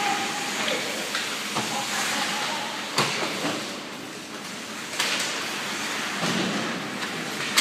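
Ice hockey play on a rink: a steady scraping hiss of skates on the ice, broken by sharp clacks of stick and puck, about three, five and seven and a half seconds in, the last the loudest.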